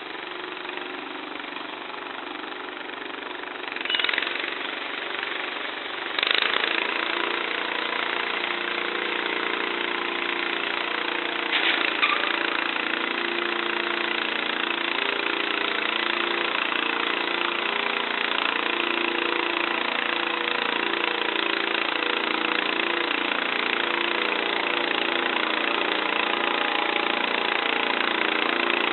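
Modified Kohler K301 12 hp single-cylinder engine on a Wheel Horse garden tractor, running steadily through a custom exhaust. About six seconds in it gets suddenly louder and a steady drone joins it. There is a short burst of noise about four seconds in and another near twelve.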